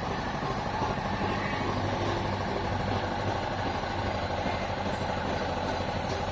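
An engine idling steadily with an even, low hum.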